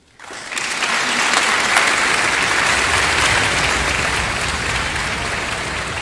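Concert hall audience breaking into loud applause a moment in, rising quickly out of silence and then holding steady.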